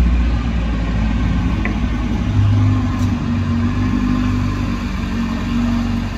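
Mk1 Ford Escort's engine running at low revs as the car creeps forward, its note swelling briefly about two and a half seconds in.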